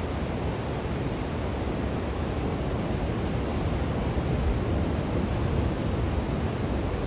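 Ocean surf breaking on a sandy beach, a steady rushing wash of noise, with wind rumbling on the microphone.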